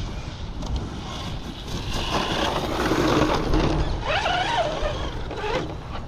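Electric motor of an Arrma Kraton RC truck whining as it is driven back in, its pitch rising and falling with the throttle over the second half, over a steady low rumble.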